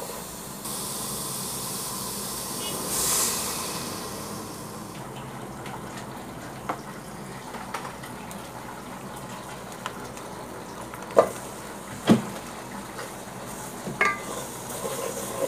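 Chopped onions sizzling in hot oil in a pot while being stirred with a wooden spatula. The hiss is strongest in the first few seconds. Later the sizzle is fainter, with scattered sharp knocks of the spatula against the pot; the loudest knocks come about eleven and twelve seconds in.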